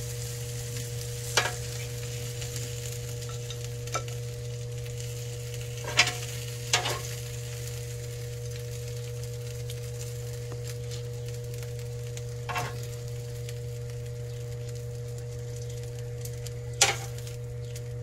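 Steady hiss of chicken wings sizzling on the grill over a low steady hum. Metal tongs click sharply against the plate and skewers about six times at irregular moments.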